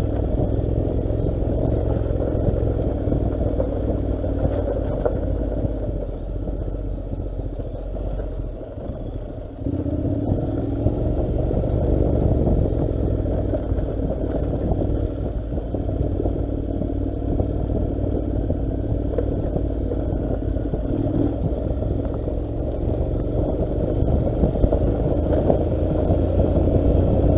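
Honda NC700 motorcycle's parallel-twin engine running as it rides over a rough gravel track, heard from on board with wind noise and rattling from the rough surface. It eases off briefly about a third of the way in, then picks back up sharply.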